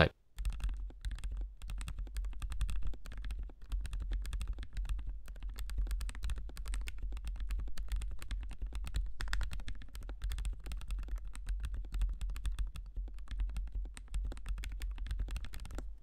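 Fast, continuous typing on a 37-key double-gasket-mounted handwired mechanical keyboard: a dense, even run of keystroke clicks at about 100 words a minute that stops abruptly at the end.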